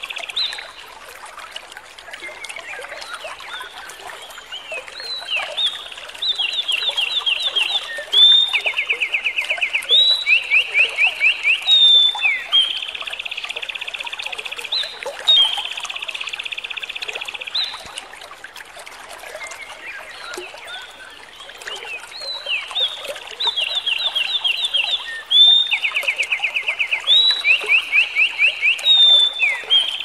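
Small songbird singing loud, rapid trills and fast runs of repeated notes, with softer twittering between phrases. The same sequence of phrases comes round twice, about fifteen seconds apart, as in a looped masteran tutor recording for cage birds.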